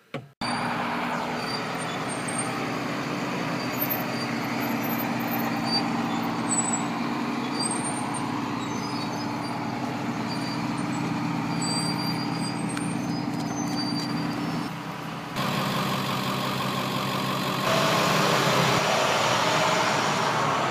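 Large vehicle engines, most likely school buses, running steadily with a low hum and brief high squeaks in the first part. The level steps up about fifteen seconds in and again a few seconds later.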